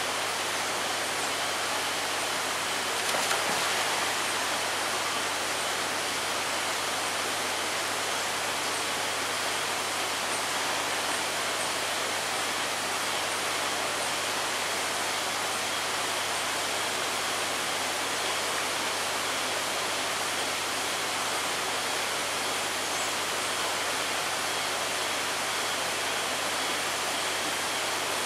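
Steady rushing of running water, even throughout, swelling slightly about three seconds in.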